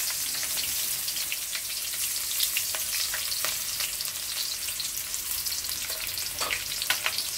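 Freshly added chopped onions sizzling in hot ghee in a stainless steel kadhai, a steady frying hiss. A few faint clicks and knocks sound through it.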